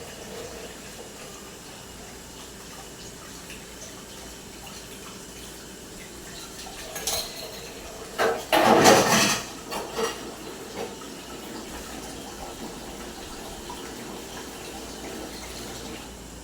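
Dishes being washed at a sink: water running and splashing, with dishes clinking now and then and one loud gush of water a little past the middle.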